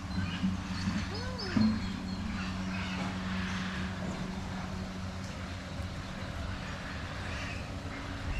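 Zoo ambience: a steady low hum, with scattered small bird chirps and one short rising-and-falling call about a second and a half in.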